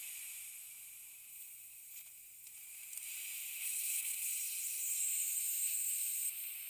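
Compressed air hissing from a pneumatic blow gun, blasting debris out of the head stud holes in a Honda D16 engine block so the studs can bottom out cleanly. The hiss grows stronger about three and a half seconds in.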